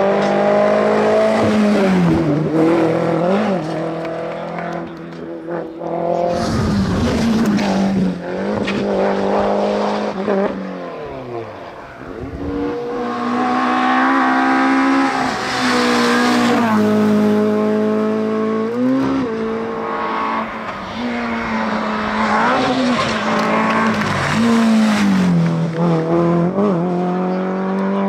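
Rally cars, among them Renault Clios and a Peugeot 205, driven hard one after another, their four-cylinder engines revving high with the note dropping sharply at each gear change or lift-off. The sound dips between cars a little before the middle.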